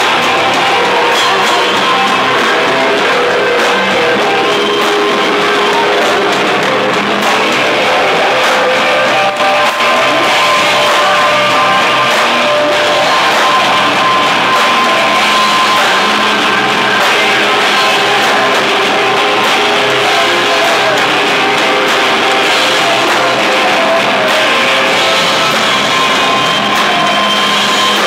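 Live rock band playing loud, with electric guitar and a drum kit.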